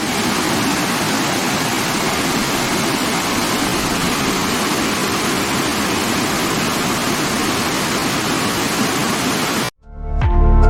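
Waterfall: a steady, even rush of falling water that cuts off suddenly near the end, where electronic background music comes back in.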